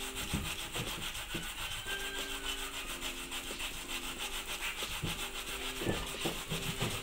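Peeled raw cassava root being grated by hand on a stainless-steel box grater, a rasping scrape repeated in quick, even strokes.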